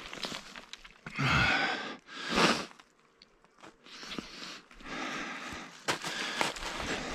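Footsteps crunching and shifting stones on loose scree, with two louder rushes of noise about a second in and again at two and a half seconds.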